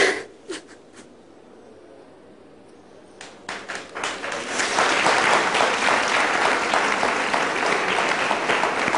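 Studio audience applauding: after a few seconds of quiet, clapping starts about three and a half seconds in, swells within a second and keeps going steadily.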